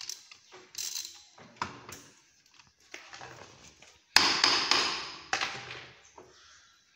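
Metal clanks and knocks of hand tools working on a four-jaw lathe chuck as it is fitted. A few light taps come first, then a loud metallic clatter about four seconds in that rattles away over a second or so, with one more knock shortly after.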